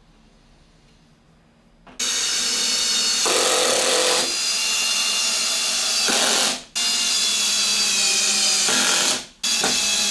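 Cordless drill boring holes into plywood. It starts about two seconds in and runs in three long spells, with two short stops between them.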